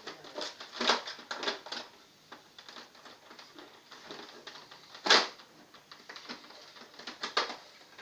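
Plastic parts of a Nerf Mega Mastodon blaster clicking and knocking together as they are handled and pushed into place, in irregular clicks with a sharper knock about five seconds in.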